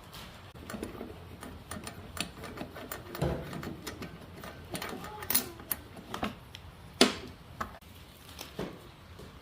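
Irregular clicks, knocks and clatter of hand tools and metal parts being handled, with one louder knock about seven seconds in.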